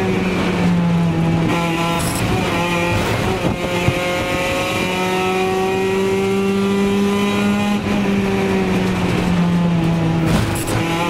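Drift car's engine held at high, near-steady revs through a long slide, heard from inside the caged cabin, with tyres squealing. The revs dip and recover briefly a few times, about 2 s in, near the middle and near the end, and climb slowly for a few seconds before easing off.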